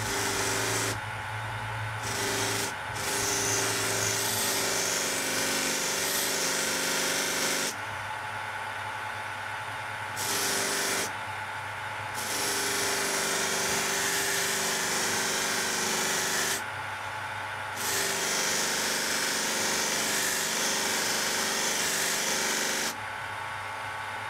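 Bench grinder running steadily with a felt buffing wheel charged with grey polishing paste. A Benchmade Mini Griptilian knife blade is pressed against the spinning wheel in several passes of a few seconds each. Each pass adds a rubbing hiss that stops when the blade comes off the wheel.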